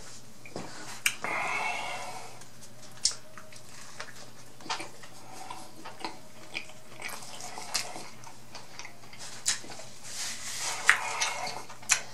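Close-miked eating of a fried chicken sandwich: wet chewing with sharp lip smacks and clicks now and then, and two short crunchy bursts, about a second in and about ten seconds in.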